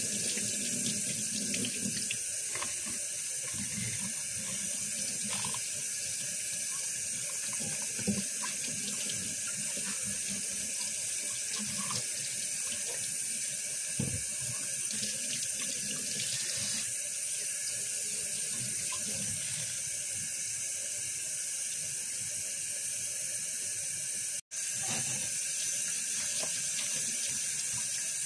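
Kitchen tap running steadily into a stainless steel sink, the stream splashing over a plastic bottle being rinsed and later over sponges being squeezed in a plastic basin. Two light knocks come through the water noise, and the sound drops out for an instant near the end.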